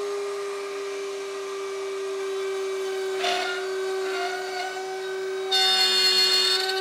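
Router in a router table running at a steady whine while a walnut strip is fed onto the spinning bit to rout an oval slot. The bit bites into the wood about three seconds in, and the cutting grows louder and brighter near the end.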